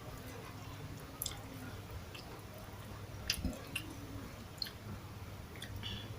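Close-miked chewing of rice and sardines, wet mouth sounds with a few short sharp clicks, over a steady low hum.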